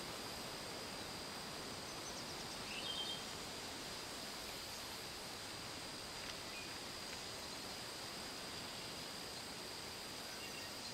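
Outdoor ambience: a steady hiss with a continuous thin high-pitched tone, and a brief cluster of chirps about three seconds in.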